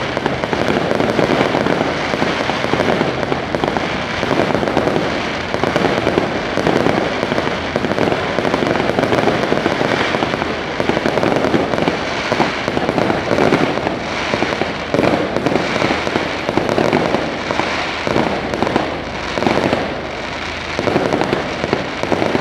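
Aerial fireworks going off in a dense, continuous barrage of bangs and crackling, with no break.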